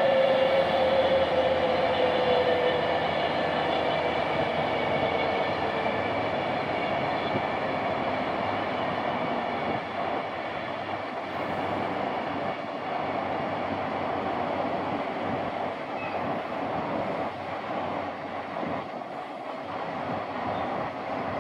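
Freight train rolling past, wagons rumbling along the rails. A droning note from the locomotive slides down in pitch during the first few seconds and fades, and the rolling rumble slowly dies away as the train draws off.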